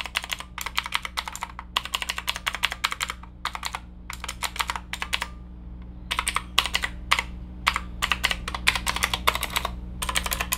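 Fast typing on a Zeus G61 budget mechanical keyboard with clicky switches, a sharp click on every keystroke that sounds like a typewriter. The typing comes in quick runs, with a pause of about a second a little past the middle.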